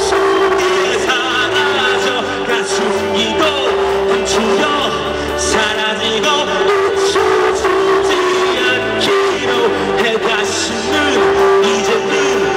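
A rock band playing live with a male voice singing over electric bass, guitar and drums, and a steady note held underneath.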